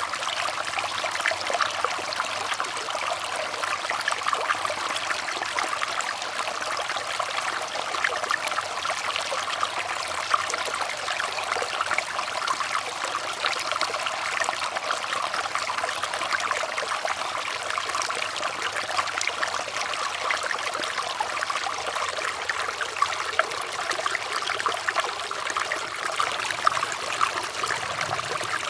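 Running water trickling steadily, with a dense patter of small splashes and no change in its flow.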